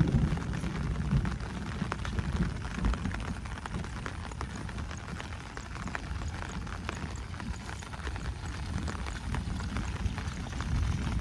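Heavy rain falling steadily, with many fine drop clicks over a low rumble of wind on the microphone and the uneven thuds of footsteps walking through it.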